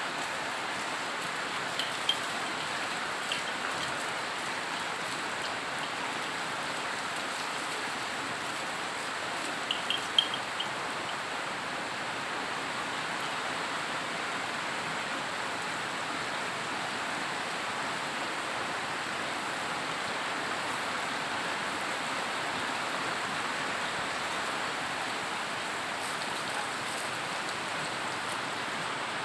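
Steady rain falling, an even hiss of water, with a few short sharp taps about two seconds in and a small cluster about ten seconds in.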